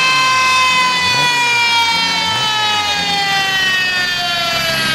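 A high whine falling slowly and steadily in pitch as the 1150 hp Toyota Supra's drivetrain and the dyno roller spin down after a full-power pull. Underneath, the engine is briefly blipped a few times, about a second apart.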